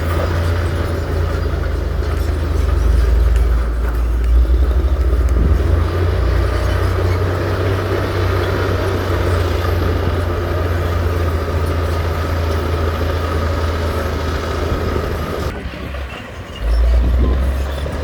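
Heavy diesel earthmoving machinery running steadily with a deep, loud rumble. It drops off briefly near the end, then comes back loud.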